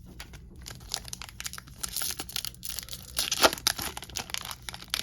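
Foil wrapper of a trading-card pack being torn open and crinkled, a dense run of crackling and ripping that is loudest about three and a half seconds in.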